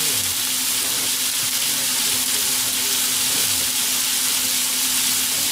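Pork and vegetable stir-fry sizzling steadily in sesame oil in a frying pan, with a faint steady low hum underneath.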